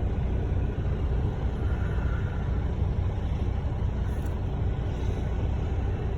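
Steady low rumble of a running vehicle, unchanging throughout.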